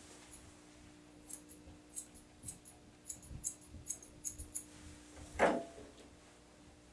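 Grooming scissors snipping through a dog's long coat: about a dozen quick, sharp snips over roughly three seconds. About five and a half seconds in there is a single louder, duller sound.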